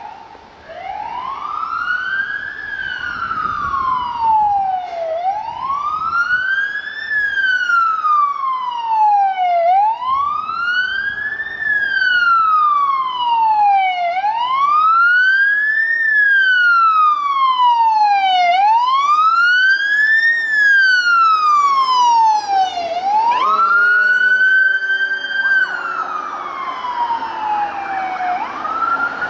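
Fire engine and ambulance sirens on a call. A wail rises and falls about every four and a half seconds, six times. About two-thirds of the way through, a different wail with a quick rise and a long, slow fall takes over as the vehicles pass, rising again near the end.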